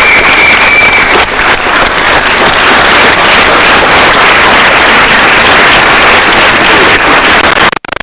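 Audience applauding loudly, with a short high whistle-like tone in the first second; the sound cuts off abruptly just before the end.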